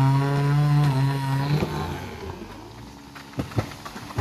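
A chainsaw runs steadily, then slows and drops away about a second and a half in. A few sharp cracks and thuds follow near the end as the cut tree comes down.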